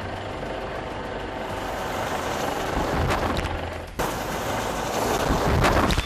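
Helicopter hovering low overhead, a steady rotor and engine noise with a pulsing low end as its downwash whips the sea surface. About four seconds in the sound cuts out briefly and comes back sharply, then swells into a louder rushing noise near the end.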